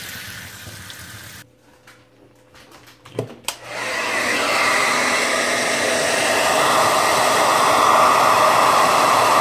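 Running water fades out in the first second or so; after a couple of clicks about three seconds in, a handheld hair dryer switches on and blows steadily and loudly, drying the freshly rinsed cast-iron pedestal.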